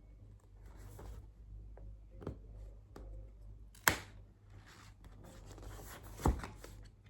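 Hands opening a cardboard product box: soft rustling and sliding of cardboard and packaging, with light clicks and two sharp snaps, about four seconds in and just after six seconds.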